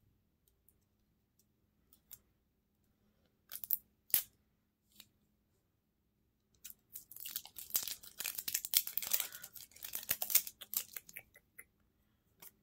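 A couple of small clicks, then about halfway through several seconds of crackly tearing and crinkling as the packaging on a lipstick is torn open by hand.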